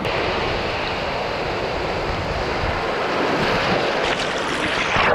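Shallow ocean surf washing and foaming right at the water's surface, swelling louder near the end as a wave's foam rushes in.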